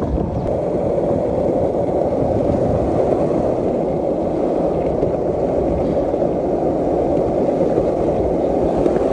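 Skateboard wheels rolling fast over rough asphalt: a loud, steady rumble.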